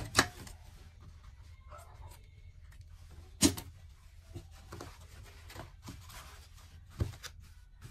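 An industrial sewing machine's short run of stitching stops right at the start. Then fabric and a paper pattern are shifted and handled on the sewing table, with a sharp click about three and a half seconds in and another near the end.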